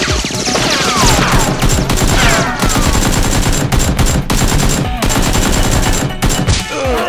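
Rapid automatic-gunfire sound effects standing in for Nerf blasters firing: a dense, continuous stream of shots with a few short breaks.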